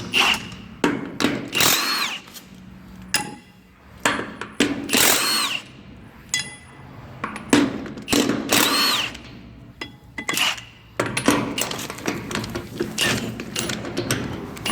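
Milwaukee M18 FUEL brushless 1/2-inch impact wrench hammering wheel nuts loose in about five separate bursts, its motor whine rising and falling as the trigger is squeezed and let go. Short clicks fall in the gaps between bursts.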